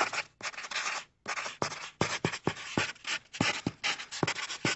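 Pen scratching on a paper notepad as a message is written out by hand, a run of quick strokes with short pauses between them.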